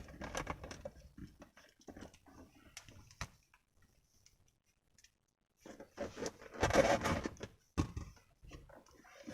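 Handling of a portable car vacuum cleaner's plastic attachments, heard as scattered light clicks and knocks, with a louder scraping rustle about seven seconds in. The vacuum's motor is not running.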